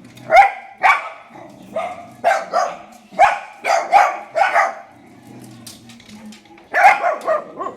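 A dog barking repeatedly in short, sharp, fairly high-pitched barks, a quick run of about nine, a pause of nearly two seconds, then three more near the end.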